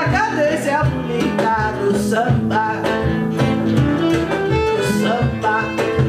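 A woman singing while strumming a small acoustic guitar, with a violin playing along.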